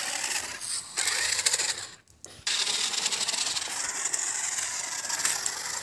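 Toy RC rock-crawler car driving over a dirt track: its small electric motor and gearbox whirring, with the tyres crunching and rattling on the rough ground. A dense, steady hiss of fine ticks, broken by a short gap about two seconds in.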